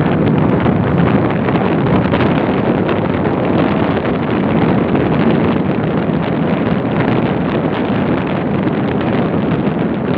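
Wind rushing over the microphone on a moving motorbike, a loud, steady roar with the bike's road noise blended in.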